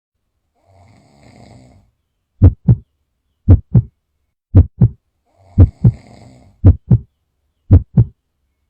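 A person snoring, with two faint rasping breaths, overlaid by loud, short, low thumps that come in pairs about once a second, like a heartbeat.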